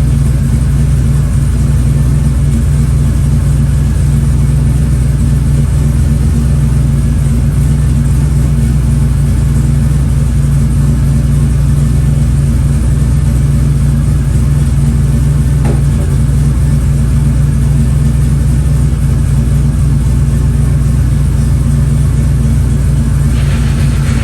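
Car engine idling steadily, running so the newly installed power steering box can be checked for leaks. A higher hiss joins in near the end.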